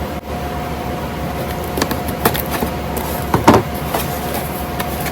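Toy parts and packaging being handled as the X-Wing's pieces come out of the box: a few short rustles and knocks, the loudest about three and a half seconds in, over a steady background hum.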